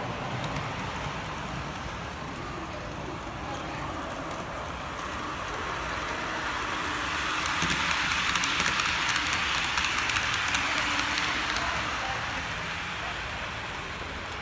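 Model freight train running past close by, its wheels rattling and clicking on the track, swelling louder about halfway through and then fading.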